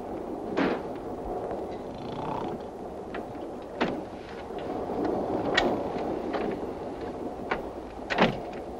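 Steady rumble of a moving train carriage, with several sharp clicks and knocks scattered through it, the loudest near the end.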